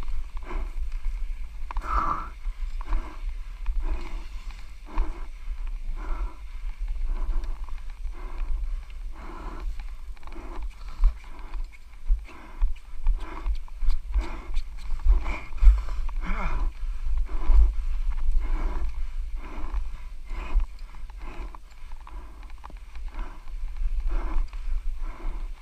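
A mountain-bike racer panting hard and fast, out of breath from all-out effort, about two breaths a second, over a steady low rumble.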